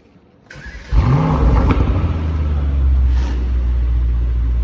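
Brabus GT800's twin-turbo V8 starting: a brief starter whirr, then the engine catches about a second in with a quick rising rev flare and settles into a steady idle.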